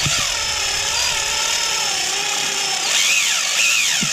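Cordless drill motor running steadily while the bit cuts into the aluminum body of a Holley 4412 carburetor, drilling out a stripped threaded hole for a HeliCoil insert. The cutting gives a squeal that wavers in pitch and swoops up and down about three seconds in.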